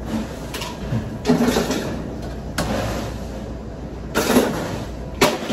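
Knocks and rattles of bottles and containers being handled at a stainless-steel bar station, a handful of separate bangs with the loudest about four seconds in, over a steady low hum.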